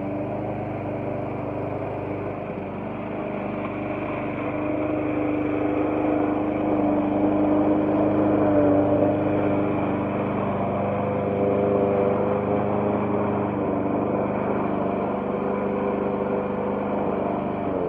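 Small gasoline engine of a walk-behind lawn mower running steadily under mowing load. It gets louder about four seconds in.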